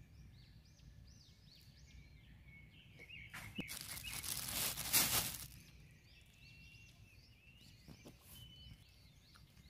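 A plastic bag crinkling for about two seconds, starting about three seconds in, as a handful of freshly picked mushrooms goes into it. Small birds chirp faintly throughout.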